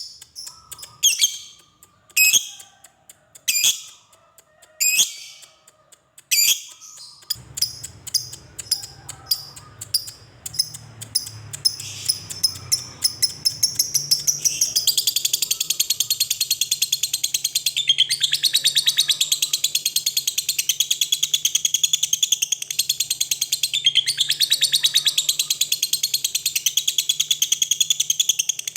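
Lovebird calling: separate shrill chirps for the first few seconds, then a rapid chatter that runs into one long unbroken trill, the long 'ngekek' of a lovebird in full song. A low hum sits under the sound from about a quarter of the way in.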